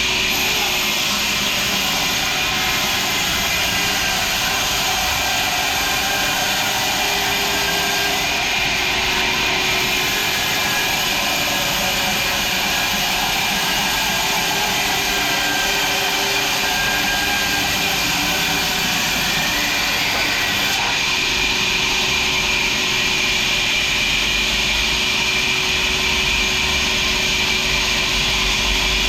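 Sawmill machinery running steadily: a constant hissing drone with faint steady hums underneath and no breaks.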